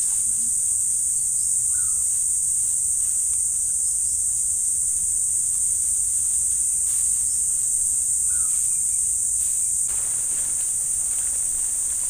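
Steady chorus of forest insects, an unbroken high-pitched buzz, with faint rustling near the end.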